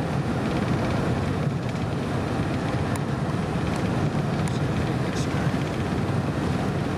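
Steady road and engine rumble heard from inside a moving car, with a few faint ticks.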